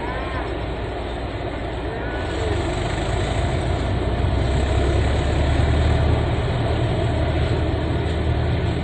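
Floodwater rushing across a road, a steady, loud rushing noise, with a low rumble that swells through the middle and eases near the end.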